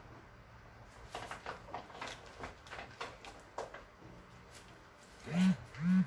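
Faint rustling and light clicks of a running vest and its straps being handled on the body. Near the end come two short low hums, each under half a second.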